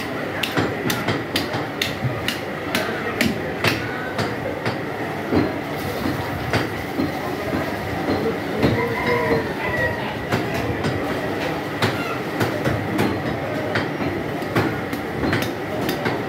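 Busy market din: a continuous noise with many sharp knocks and clicks, irregular and several a second, over a faint steady high tone.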